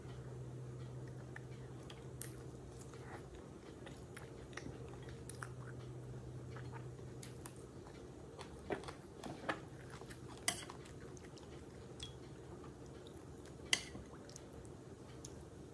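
A person chewing pieces of goat meat and bone from a stew, with quiet wet mouth sounds over a faint low hum. In the second half come a few sharp clicks, the last as a metal spoon goes into the glass dish.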